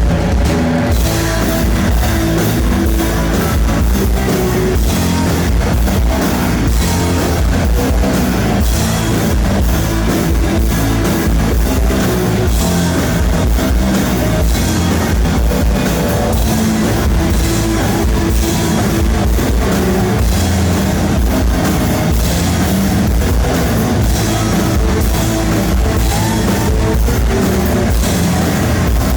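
A band playing live, with guitar and drum kit, recorded on a blown cellphone microphone that distorts the sound.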